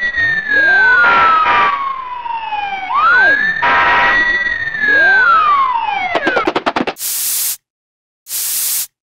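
Fire engine siren sound effect wailing, rising and falling twice in slow cycles of about three seconds, with an echoing layer, then cutting off with a quick flutter of clicks. Then two short hissing bursts of water spray from a fire hose.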